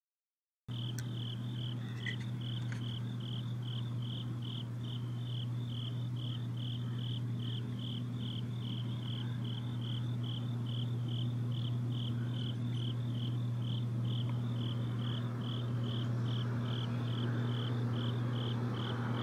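Crickets chirping in an even rhythm, about two chirps a second, over a steady low hum. The sound cuts in abruptly a moment in.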